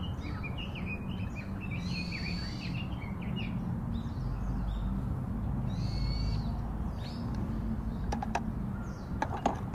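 Birds chirping and calling, with a short call on one steady high note repeating about every four seconds, over steady low background noise. A few sharp clicks come near the end.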